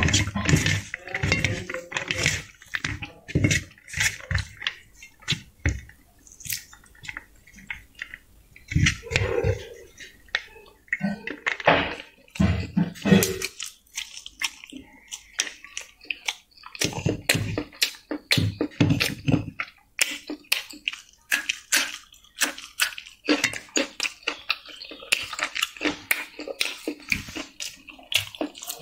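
Eating by hand: fingers mixing rice with chicken liver fry on a steel plate, and chewing with many short mouth clicks and smacks.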